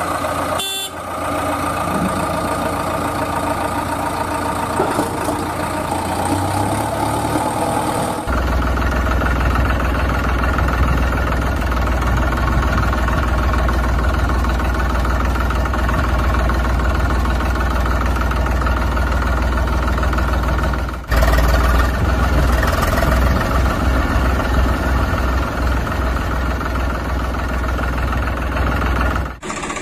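An engine running steadily with a deep hum. The sound is in several stretches that change abruptly about 8 and 21 seconds in.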